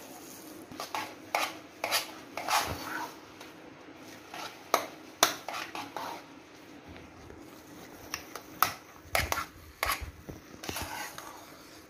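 A bare hand churning stiff, crumbly chilled milk cream in a stainless steel bowl. Irregular knocks, taps and scrapes against the metal, a few at a time, with pauses between. The cream is at the dry stage just before the butter separates from its liquid.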